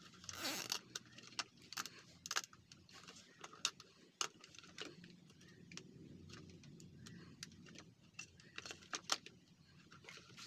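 Faint, irregular plastic clicks and rattles as a cable tie is worked and pulled tight around a blender's safety-lock switch, with a few quick clicks close together near the end.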